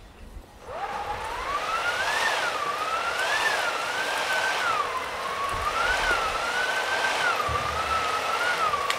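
A single sustained whistle-like tone that glides up about a second in, then wavers slowly up and down in pitch without a break, like a howling wind, opening a marching band's show.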